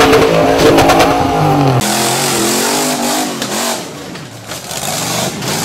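Off-road rock-crawler buggy engines revving hard, the engine note rising and falling. The sound changes abruptly about two seconds in, where one clip gives way to the next.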